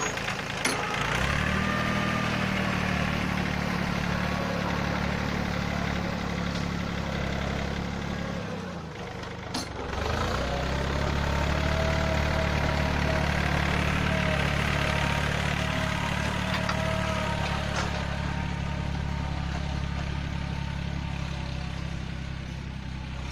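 Yanmar 1145 tractor's diesel engine running steadily while working a front blade to push soil. Its note drops away briefly about nine seconds in, then comes back up and holds steady.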